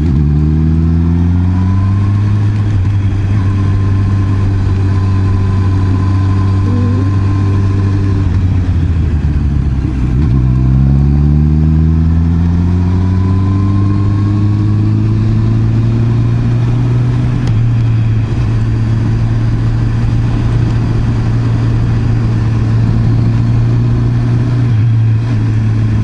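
Honda CB650R's inline-four engine pulling under way, with road and wind noise. It climbs in pitch at the start, drops away about nine to ten seconds in, climbs again, then holds a steady note.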